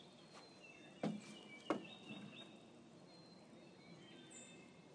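Faint outdoor background with two sharp knocks about a second in, a little over half a second apart, and light high chirps scattered through it.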